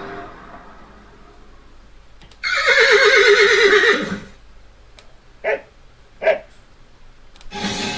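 Recorded horse whinny sound effect played from a Google Home smart speaker: one loud quavering neigh lasting about a second and a half, followed by two short blows or snorts.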